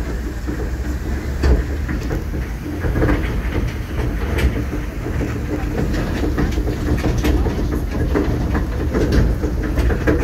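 Open-air sightseeing tram with linked passenger cars running along: a steady engine hum and road rumble, with scattered rattles and clicks from the open car frames.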